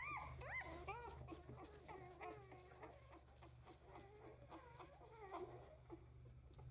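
Three-day-old Newfypoo puppy whimpering and squeaking as it is handled: a string of short, high cries that rise and fall in pitch, the strongest in the first second, then softer and quicker ones through the rest.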